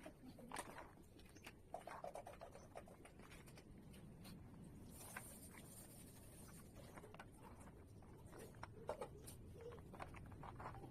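Faint, scattered clicks and scrapes of plastic Lego bricks being handled and pressed together.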